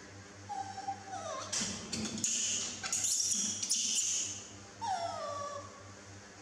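A baby macaque crying, a few short high whimpering calls that slide down in pitch, with a louder, noisier stretch in the middle.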